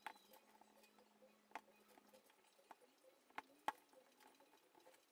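Faint, scattered small clicks and taps as a spring bar and spring bar tool work against a watch case's lugs while a rubber Tropic strap is fitted, with two sharper clicks close together in the second half.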